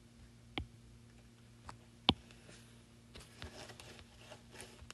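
Stylus tapping on a tablet's glass screen: a few sharp taps, the loudest about two seconds in, then a run of softer ticks and light scratches near the end, over a faint steady hum.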